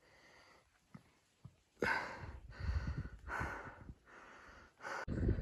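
Hiker's breathing, a few noisy breaths starting about two seconds in, with a couple of faint clicks before them and a louder low rumble near the end.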